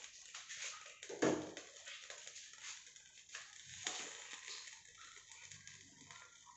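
Faint irregular crackling of alcohol-soaked cotton burning under a kerosene stove's burner to preheat it, with a single short thump about a second in.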